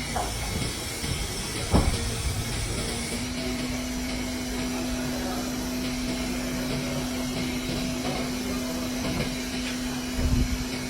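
A machine running with a steady hiss, joined about three seconds in by a steady hum; a single sharp knock about two seconds in and a few knocks near the end.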